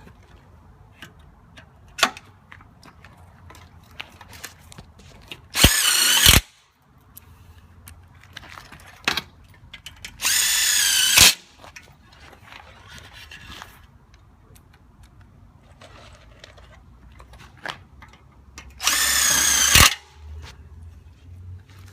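A power drill driving small self-tapping screws into an aluminum railing and post, in three short runs of about a second each with a wavering motor whine. Light clicks and knocks of handling come between the runs.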